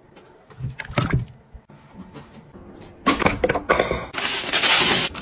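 Plastic and glass kitchen-appliance parts being handled: a few light clicks and knocks, then, about three seconds in, a stretch of scraping and rustling handling noise.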